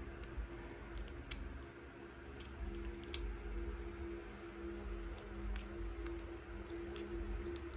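Light clicks and taps of a Beyblade spinning top's small plastic and metal parts being handled and fitted together, the sharpest click about three seconds in, over a steady low hum.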